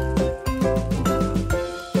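Background music: a melody of pitched notes over a bass line, with new notes starting at a steady beat.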